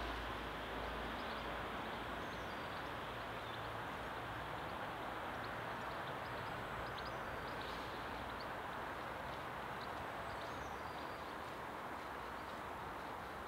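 Outdoor garden ambience: a steady background hiss with faint, brief high bird chirps scattered through it.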